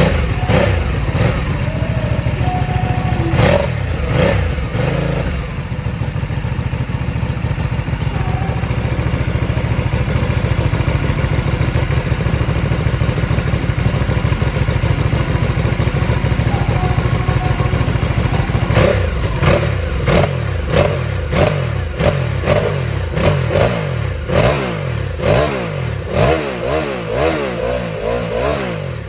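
Vyrus motorcycle engine running at idle and being revved: a few blips of the throttle at first, a steady idle through the middle, then a long series of quick throttle blips, about one a second, that come faster toward the end.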